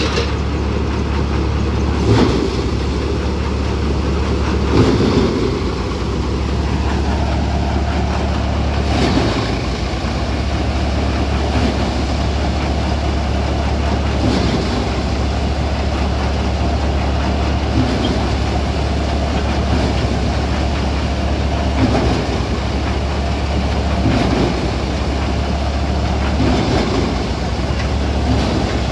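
Dashmesh paddy thresher running, driven by a Sonalika DI-47 RX tractor's 47 hp, 3200 cc engine, with a loud, steady drone and low hum. A brief louder surge comes every two or three seconds as bundles of paddy are fed into the threshing drum.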